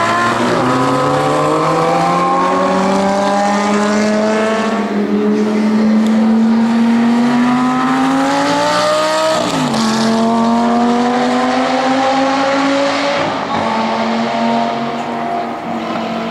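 Lamborghini Gallardo V10 pulling hard on track, its exhaust note climbing steadily in pitch through a long gear. It drops sharply with an upshift about nine and a half seconds in, climbs again, and shifts once more around thirteen seconds.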